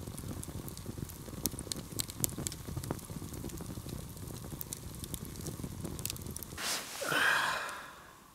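Log campfire burning, crackling with many sharp pops over a low flutter of flames. About six and a half seconds in, a loud rustle of sleeping-bag fabric takes over for a second or two.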